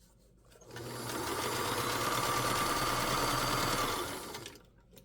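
Vintage Kenmore sewing machine stitching. It starts up a little under a second in, runs steadily for about four seconds, then slows and stops near the end.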